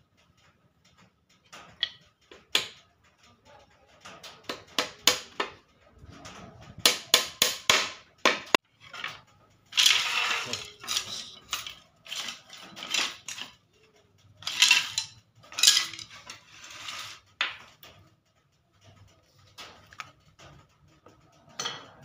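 Thin wooden slats knocking, tapping and clattering against each other as a bird-cage frame is fitted together by hand, in irregular clusters of sharp taps with a few longer rattling stretches.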